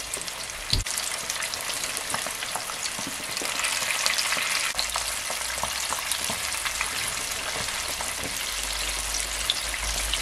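Flour-coated chicken deep-frying in hot oil in a pot: a steady sizzle full of small crackles, a little louder from about three seconds in. A single knock about a second in.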